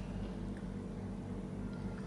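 Steady low electrical hum, with a faint click about half a second in.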